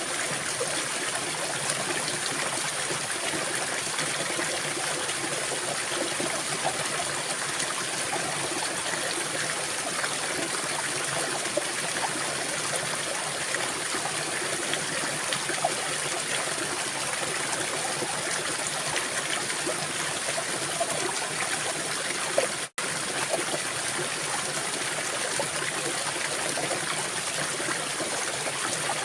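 Small stream running steadily, with a constant hiss of flowing water, broken by a momentary gap about three-quarters of the way through.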